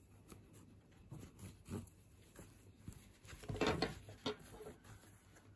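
Soft rustling and light ticks of yarn and crocheted fabric being handled as a chain-stitch lace is drawn through a shoe's eyelets with a crochet hook. The rustle grows briefly louder about three and a half seconds in.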